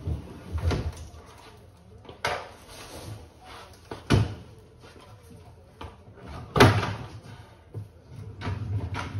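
The sheet-metal cabinet of a vertical package air-conditioning unit knocking and thudding as it is rocked and pulled out of its wall closet: four loud bangs a second or two apart, with smaller knocks and a low rumble between.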